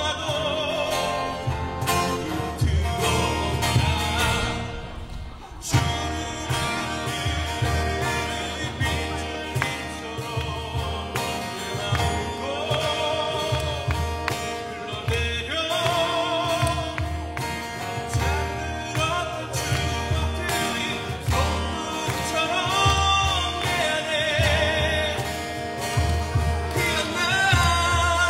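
Music: a song with a singing voice holding wavering notes over a steady low beat.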